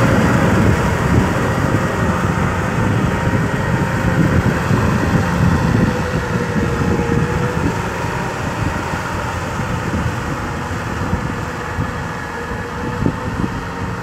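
Kubota M6040 SU tractor's four-cylinder diesel engine running steadily under load, pulling a rotary tiller through paddy mud, growing gradually fainter as it moves away.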